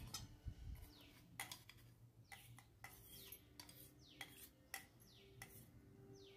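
Light clicks and taps of a steel spoon on a steel mixer jar and bowl as ground spice powder is knocked out into milk and stirred in, quiet overall. Faint short falling chirps recur every second or so.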